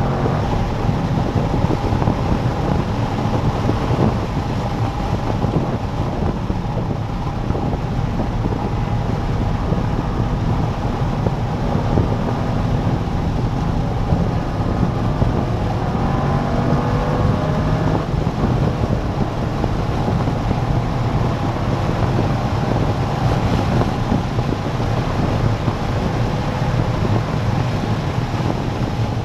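Chevrolet C5 Corvette Z06's LS6 V8 running hard at track speed, its pitch rising and falling as it accelerates and slows, under heavy wind and road noise.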